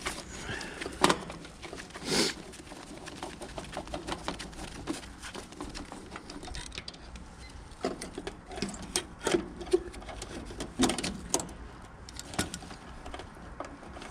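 Scattered small clicks, taps and knocks of hand tools and wires being handled while a heat pump's contactor is replaced, coming in clusters with a louder knock about two seconds in.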